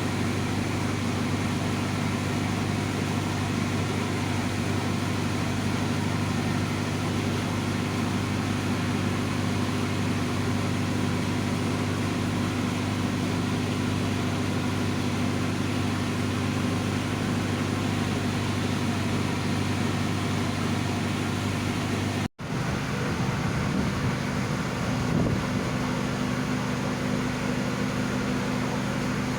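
Steady low drone of a large passenger ship's engines and machinery. The sound cuts out for an instant about 22 seconds in, then the drone goes on with a slightly different hum.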